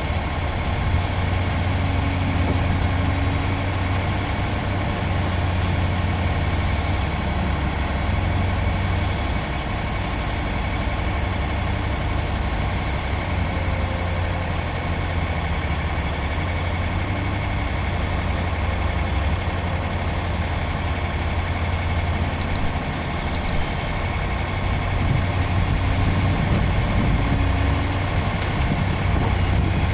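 Heavy diesel engines of a Cat 336D excavator and a Cat 740 articulated dump truck running steadily as the excavator loads the truck, a deep, even rumble. A couple of faint high clicks sound about two-thirds of the way through.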